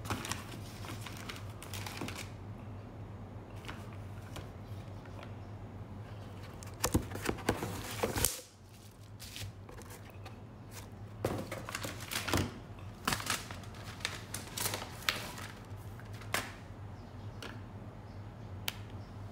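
Cardboard shipping box being opened and rummaged through by hand: irregular rustling, scraping and sharp clicks of cardboard flaps and packing, over a steady low hum.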